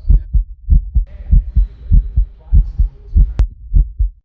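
Heartbeat sound effect: deep thumps in lub-dub pairs, about one and a half beats a second, a racing pulse. A single sharp click cuts in about three and a half seconds in.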